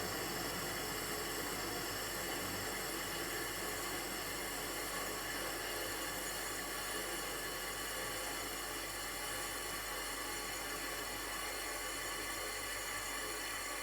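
Toshiba twin rotary inverter compressor running steadily, a dense stack of steady high whining tones over a hissing noise.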